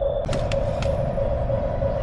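Small electric RC vehicle's motor and gearbox running, a steady whine over a low rumble, with a few light clicks.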